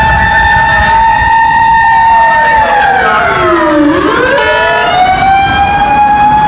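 Japanese emergency vehicle's mechanical motor siren wailing. It holds a high pitch, winds down to a low growl about three to four seconds in, then winds back up to full pitch, over a steady low rumble.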